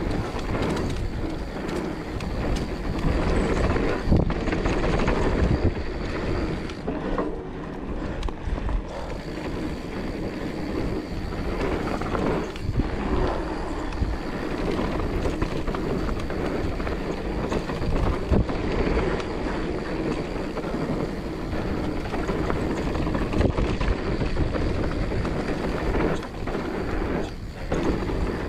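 Mountain bike rolling fast down a dirt trail: knobby tyres rumbling over dirt and leaves, with the bike rattling and clattering over bumps, loudest about four to six seconds in.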